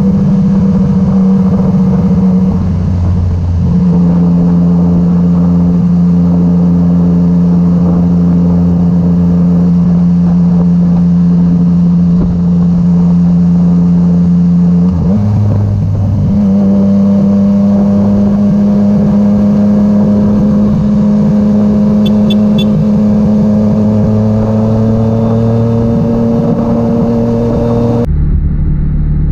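2015 Yamaha MT-09's three-cylinder engine running steadily at cruising speed over a rush of wind noise. The engine note shifts about three seconds in and again around fifteen seconds in, then climbs slowly; near the end the sound cuts abruptly to a quieter, lower one.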